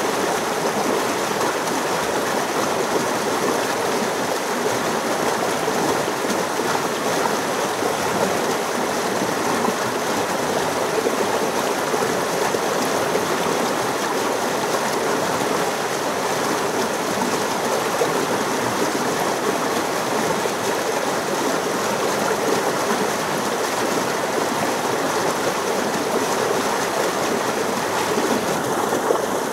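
Stream water rushing and splashing steadily over a small cascade between boulders.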